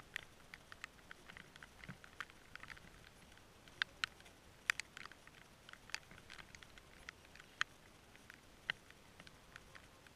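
Faint, irregular light ticks and taps of water drops landing on the camera's housing, with a few sharper taps about four to five seconds in and again near the end.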